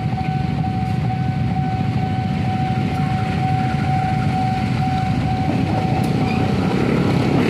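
KAI diesel-electric locomotive approaching a level crossing, a steady low rumble that grows slightly louder as it comes in. A thin, steady high tone runs beneath the rumble and fades out about six and a half seconds in.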